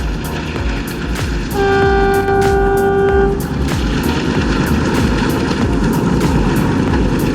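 WDM3D ALCO diesel locomotive horn sounding one steady single-pitched blast of about a second and a half. Under it runs the rumble of the passing train, with the steady clatter of wheels on the rails.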